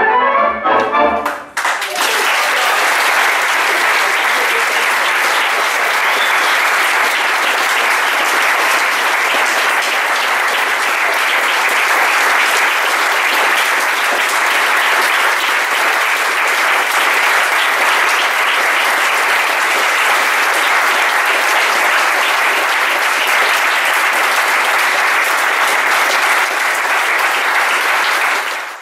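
The last notes of tango music stop about a second and a half in, and an audience breaks into steady, sustained applause.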